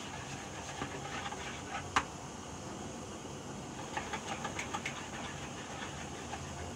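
Utensil stirring brownie batter in a bowl, with light scraping and small clicks against the bowl and one sharper tap about two seconds in, over a steady background hum.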